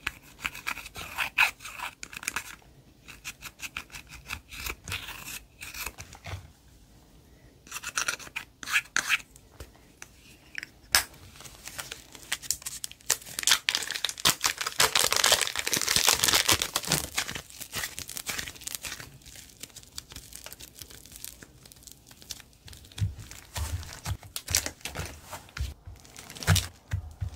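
Slime being squished, stretched and pressed by hand, making many quick sticky clicks and pops, with a denser run of crackling about halfway through.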